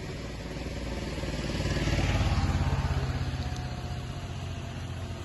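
A motor vehicle's engine passing by, growing louder to a peak about two seconds in and then fading.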